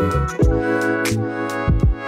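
Background music with a steady beat: electronic music with bass notes and regular drum hits.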